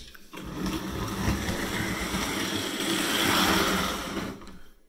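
HO scale model diesel locomotive running fast along the test track: its small electric motor and gears whirring and its wheels rolling on the rails. The sound swells to its loudest about three seconds in, then fades away near the end.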